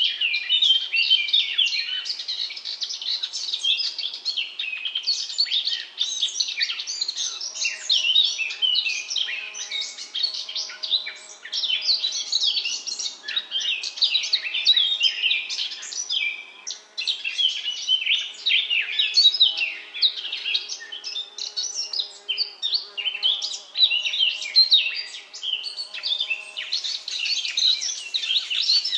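Small birds chirping and twittering in a dense chorus, many short overlapping calls with no pause.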